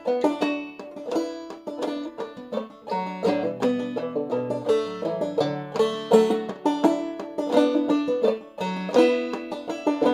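Clawhammer banjo in a low tuning (dADF#A) playing a busy, steady run of plucked and brushed notes, with a few low bass-string notes in the middle of the phrase.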